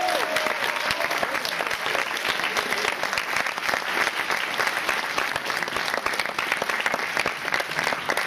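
An audience applauding steadily, a dense, sustained patter of many hands clapping.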